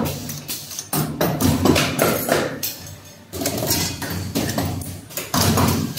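Hose clamp making machine running: its forming dies and pneumatic cylinders strike in a quick, irregular series of metallic knocks, with a low hum between them at times.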